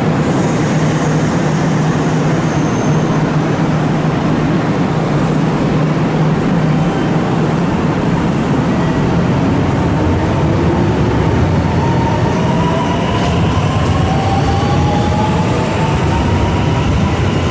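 Kintetsu 8A-series and 8600-series electric train sets running coupled, standing with a steady hum and then pulling away. From about nine seconds in, the traction motors' whine rises in pitch in several tones as the train accelerates past.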